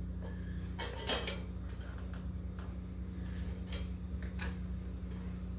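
About half a dozen light metallic clicks and knocks, scattered and irregular, over a steady low hum.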